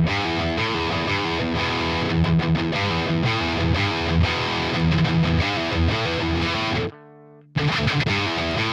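Distorted electric rhythm guitar playing a riff through the Mars Plexi #1 amp-simulator plugin, its EQ being adjusted. It stops abruptly about 7 seconds in for half a second as the loop restarts, then carries on.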